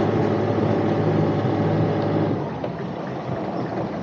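Sailing yacht's single-propeller inboard engine running under throttle with a steady hum, then dropping back about two seconds in as the throttle comes off, leaving a quieter rumble.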